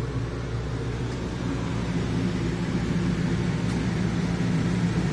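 Steady low mechanical drone of running machinery, a constant hum that grows a little louder about a second and a half in.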